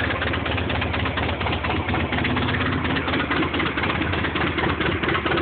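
1983 Harley-Davidson FLH's Shovelhead V-twin idling steadily on choke, just after a cold start.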